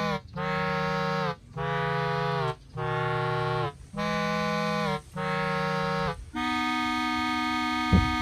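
Background music of held chords over bass notes, changing about once a second, with a longer chord from about six seconds in. A brief thump sounds near the end.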